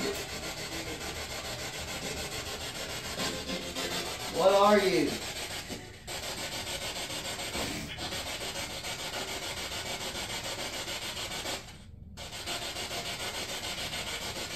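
Spirit box in SB7 sweep mode scanning radio stations: a steady, choppy hiss of static. About four and a half seconds in a brief voice-like fragment comes through, and near the end the static cuts out for a moment.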